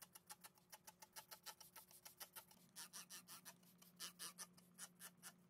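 Near silence: faint room tone with a low hum and rapid faint ticks.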